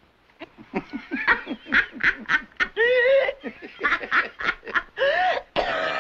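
A woman laughing in quick, cackling bursts, with a man laughing along; a longer burst of laughter comes near the end.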